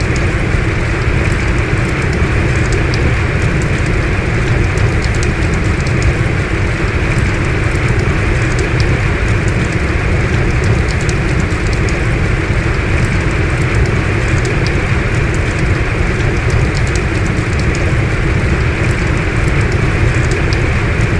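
Heavy rain falling steadily: a dense, even hiss with scattered sharp drop ticks on top.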